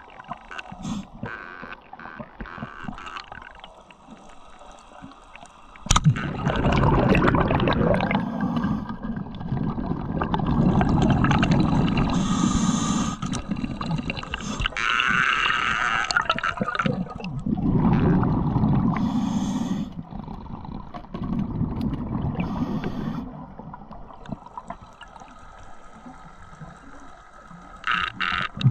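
Underwater sound of a speargun shot: one sharp crack about six seconds in, followed by loud churning noise in several bursts as the speared fish thrashes on the shaft against the rock, dying down near the end.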